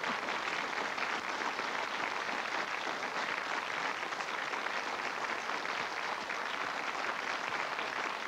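Studio audience applauding, a steady, unbroken patter of many hands clapping.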